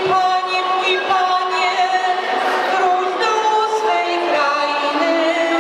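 Voices singing a Polish Christmas carol (kolęda) in long held notes that move from pitch to pitch.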